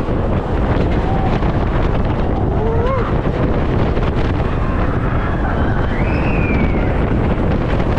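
Wind rushing over the microphone and the rumble of the Iron Gwazi roller coaster train running along its track at speed. Riders give brief yells about three seconds in and again around six seconds.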